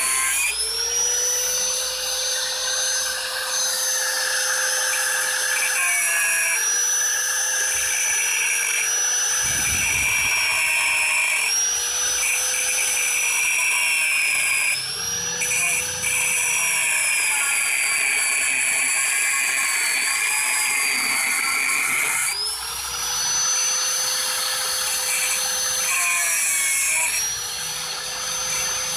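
An electric power tool working on a refrigerator compressor. Its steady whine sags in pitch under load and rises again each time it eases off, several times over, with a few short breaks.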